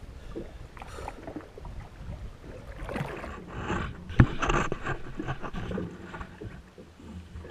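Water splashing and slapping against a jet ski's hull, with irregular handling knocks that are busiest in the middle, and one sharp knock about four seconds in that is the loudest sound.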